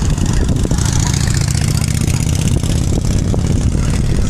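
Road vehicle engines running in slow street traffic, with cars and a motorcycle passing or idling as a steady low rumble.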